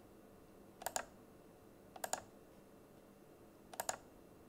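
Computer mouse clicks: three quick clicks, each a close pair of sharp ticks, spaced a second or more apart over faint room tone.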